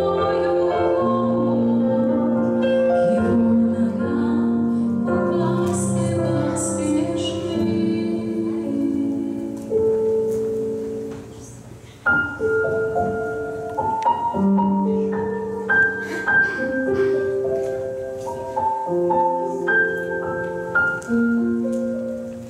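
A woman singing over piano accompaniment; her voice stops a little before halfway and the piano plays on alone, fading out near the end.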